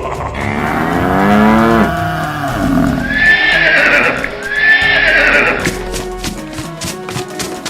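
Animal call sound effects over background music: a long low call with a wavering, falling pitch, then two high-pitched calls in quick succession.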